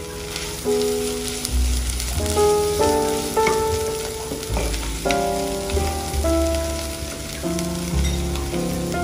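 Sliced red onions sizzling gently in butter in a pot as they are stirred with a spatula, slowly caramelising over low heat. Background music with a gentle melody and bass line plays over it.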